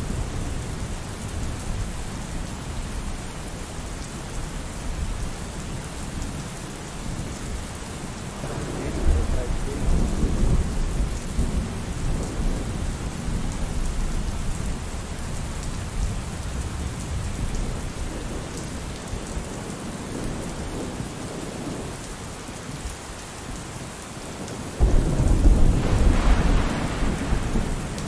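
Steady rain with rolls of thunder: a low rumble about a third of the way in, and a louder clap that starts suddenly near the end and rumbles on.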